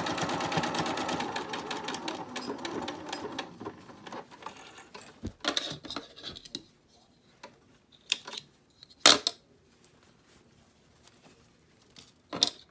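Domestic sewing machine stitching with rapid, even needle strokes, stopping about three and a half seconds in. After that come a few scattered sharp clicks, the loudest about nine seconds in.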